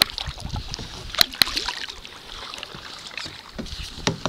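Kayak out on the water: paddle water sloshing and trickling, cut by a few sharp knocks, two close together about a second in and one near the end.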